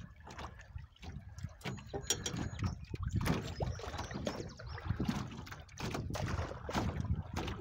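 River water lapping and splashing against the hull of an aluminum canoe as it moves through choppy riffles, in uneven, irregular splashes.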